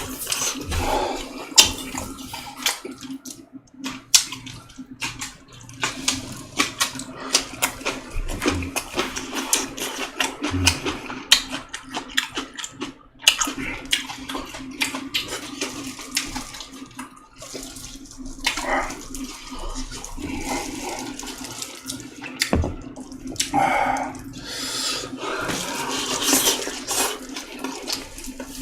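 Close-up mouth sounds of eating hot boiled chicken soup: wet chewing, slurping and irregular lip smacks and clicks, over a steady low hum.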